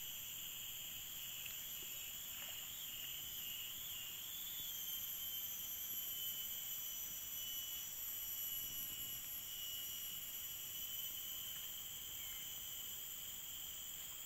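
Insects chirring steadily: several unbroken high-pitched drones layered over one another, one of them wavering in pitch for the first few seconds.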